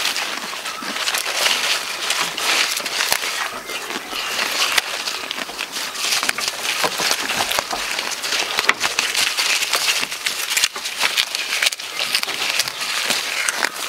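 A goat biting off and chewing jackfruit leaves close up: a dense, continuous crackling and crunching of leaves, with the leafy branches rustling.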